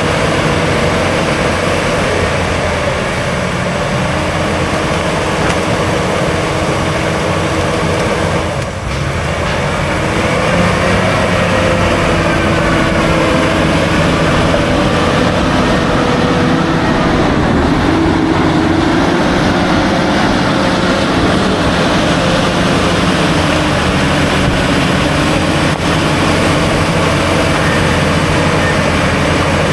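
Diesel engine of a heavy earthmoving machine running steadily under load, a continuous drone with held tones that drift slightly in pitch. It dips briefly about nine seconds in.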